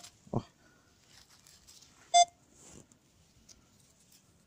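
Metal detector giving one short beep about two seconds in, over faint scraping of soil being handled. A brief low knock sounds just after the start.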